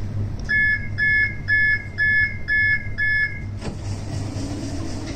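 Six electronic beeps about half a second apart, then a sharp thud: an Edinburgh tram's door-closing warning followed by the doors shutting, over the low hum of the tram.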